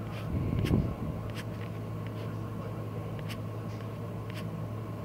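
Steady low electrical hum with hiss, picked up by a phone's microphone during a screen recording, with a few faint sharp ticks. A brief low rumble, the loudest sound, comes about half a second in.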